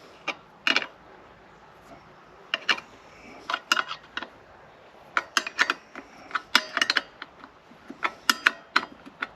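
A 10 mm spanner tightening a nut on a bench-mounted saw blade sharpener: a series of sharp metallic clicks in short groups of two to four, with brief pauses between them.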